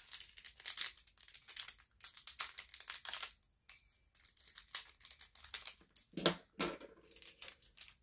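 Thin plastic bag of diamond-painting drills crinkling and rustling as it is handled and pulled at, in irregular crackly bursts with short pauses.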